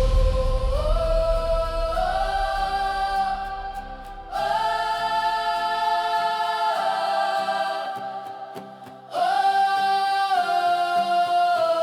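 Hymn music: a choir holding long sustained chords without clear words, in three phrases that each swell in and fade before the next begins, the band's low end dying away in the first few seconds.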